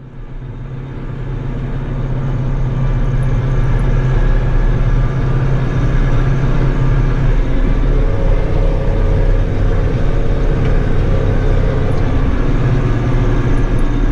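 Massey Ferguson tractor engine running steadily while pulling a round baler through hay, fading in over the first couple of seconds.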